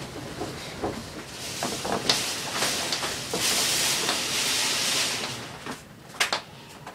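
Typhoon wind and heavy rain as a rushing noise that swells loudest in the middle. A few sharp knocks and rattles come through it as storm shutters are slid shut.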